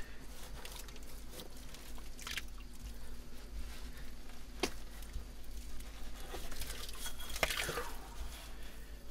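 Hands digging through wet, waterlogged privy mud: squelching and scraping with scattered small clicks and crunches. A louder scrape comes about seven and a half seconds in as a glass beer bottle is worked loose from the mud.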